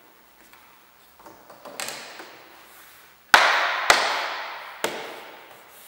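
Rubber door seal being pressed and tapped back onto the door frame of a VW Golf Mk5: light clicks, then three sharp knocks in the second half, each with an echoing tail.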